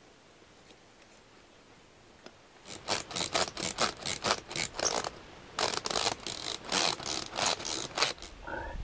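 A hand tool tightening the nuts on the bolts of a tent stove-jack flange: a fast run of rasping clicks, about five a second, starting about two and a half seconds in, with a short pause past the middle.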